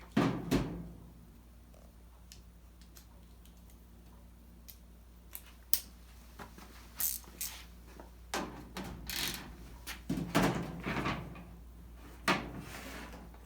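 Small socket wrench removing bolts from a clothes dryer's sheet-metal back panel: scattered sharp clicks and metal clanks, busier in the second half.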